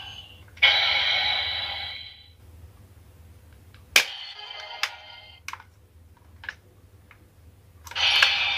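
DX X Slugger toy weapon playing short electronic sound effects through its small speaker, set off three times by a sharp plastic click of its controls. Several lighter plastic clicks fall in the quiet gaps between the sound effects.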